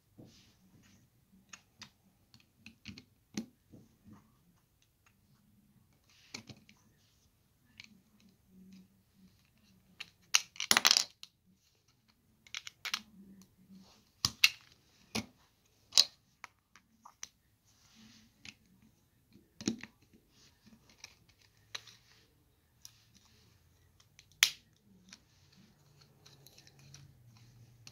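Plastic LEGO bricks clicking and clattering as they are handled and pressed together, in irregular sharp clicks with a quick flurry of louder clicks about ten seconds in.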